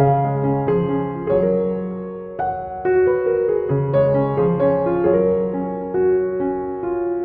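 Background music: a gentle piano melody with bass notes, chords struck about every half second.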